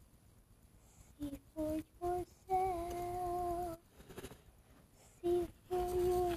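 A voice humming a slow wordless tune: three short notes, then one note held for over a second, then after a pause two more notes.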